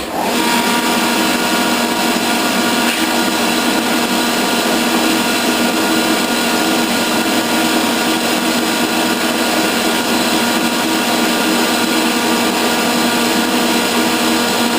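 Electric metalworking machine tool switched on and running steadily, a loud mechanical whine with several steady tones, as it turns with a shear tool set up for a cut.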